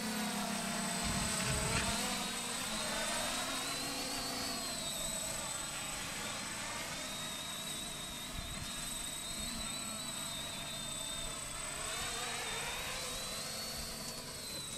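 Quadcopter drone's propellers whining overhead as it herds sheep. The pitch rises and falls in long sweeps as the drone speeds up, turns and passes.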